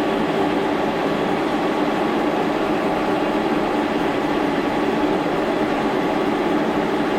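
Steady mechanical drone of running machinery, an even unchanging noise with a faint hum in it and no knocks or clicks.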